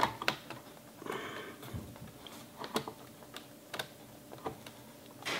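Light scattered clicks and taps of an iMac's logic board and its cables being handled inside the opened case, with a brief soft rustle about a second in.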